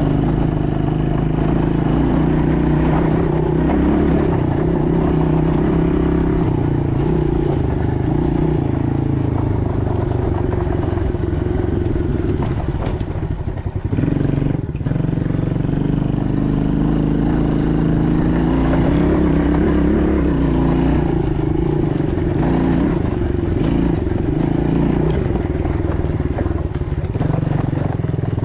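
ATV engine running steadily while riding, its pitch wavering a little, with a brief drop in level about halfway through before it picks up again.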